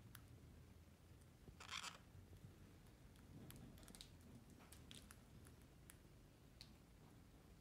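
Faint, scattered small clicks and scratches of orange-fronted parakeets' beaks picking at soft food, with one brief louder crunching rasp a little under two seconds in.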